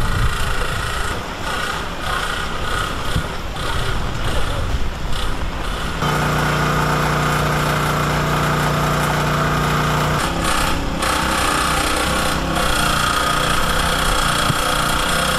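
Engine-driven water pump running, with rattling machine noise and floodwater gushing from its discharge hose. About six seconds in the sound switches abruptly to a steady motor hum that lasts about four seconds, then changes again.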